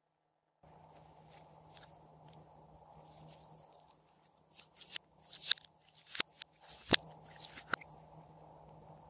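Glossy slime being stretched and then squeezed by hand, giving a run of sharp wet pops and clicks from about halfway through, the loudest a couple of seconds before the end. Under it runs a faint steady hiss and hum.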